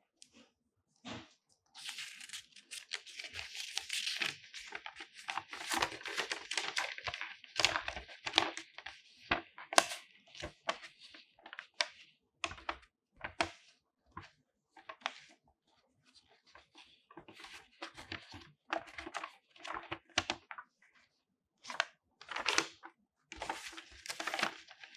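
A folded paper quick start guide being unfolded and handled, crinkling and rustling. The rustling is nearly continuous from about two seconds in, then breaks into separate crinkles and crackles.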